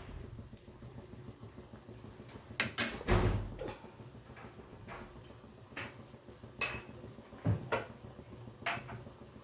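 Kitchen utensils knocking and clinking several times, the loudest a dull knock about three seconds in, as tea is strained from a pan into a glass.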